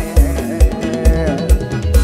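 Mor lam backing band playing an instrumental passage: a melody line over a steady kick drum beating about twice a second.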